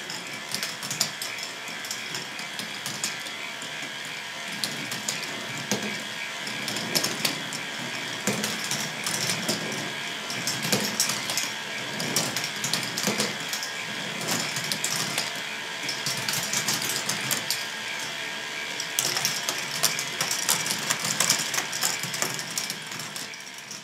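K'nex ball machine running: a steady whine from its motors under a constant clatter of plastic gears, lifts and balls clicking and rattling along the tracks.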